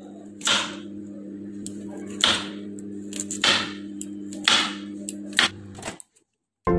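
Kitchen knife chopping through baby corn onto a wooden chopping board: about six sharp chops, roughly a second apart, over a steady low hum. The sound cuts off suddenly near the end and gentle music begins.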